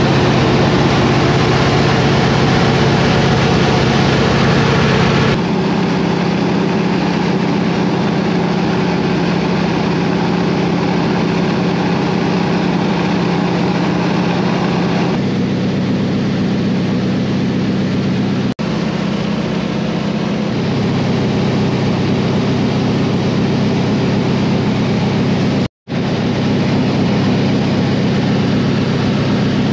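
Steady in-cabin drone of a de Havilland Beaver's nine-cylinder Pratt & Whitney R-985 radial engine and propeller in cruise flight. Its tone shifts abruptly a few times, and it drops out for a split second near the end.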